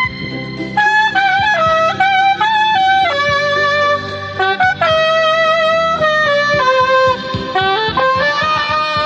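Saxophone playing a melody of held notes that step up and down, with short gaps between phrases.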